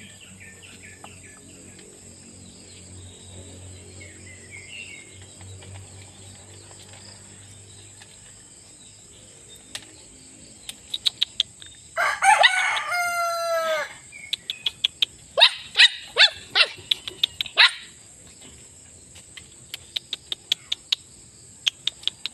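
Husky puppies in a wire crate: scattered clicks and rattles of the crate wire, and a loud drawn-out call about halfway through that drops in pitch at its end. A quick run of short sharp sounds follows it.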